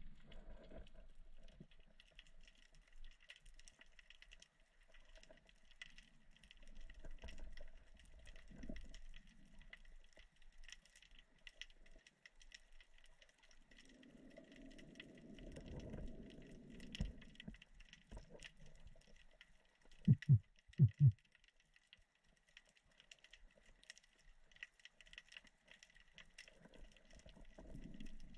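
Underwater ambience at the sea bottom: faint crackling clicks throughout, a low rumble about halfway through, and three short, loud, low knocks in quick succession about two-thirds of the way in.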